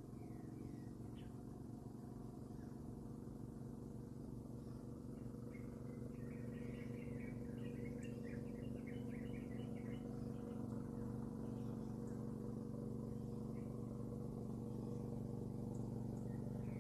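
Birds chirping in a quick run of short calls about five to ten seconds in, with a few more near the end, over a steady low hum.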